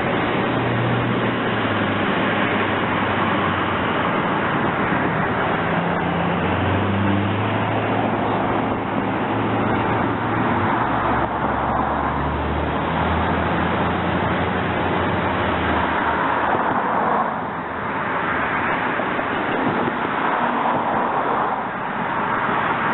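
Intermodal freight train rolling past: a steady rumble and rush of wheels on the rails, with a low drone that shifts in pitch, and two brief dips in level near the end.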